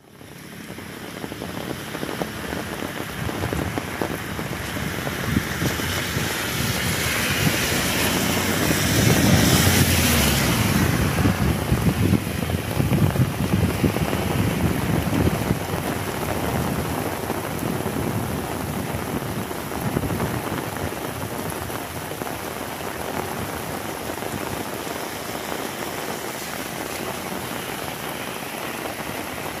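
Heavy rain falling steadily, with low gusts of wind rumbling on the microphone. It builds over the first seconds, is loudest about a third of the way in, then eases to a steady downpour.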